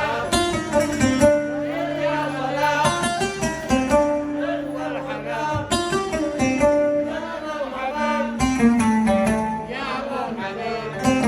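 Instrumental interlude of a Yemeni song, a plucked string instrument playing a running melody.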